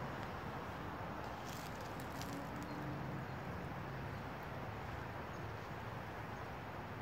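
Steady outdoor background noise with a faint low hum, and a few faint clicks about one and a half to two and a half seconds in.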